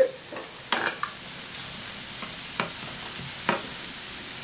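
Seafood and steak sizzling on an electric hot pot's grill plate, a steady hiss, with a few short clicks as chopsticks work in the broth pot.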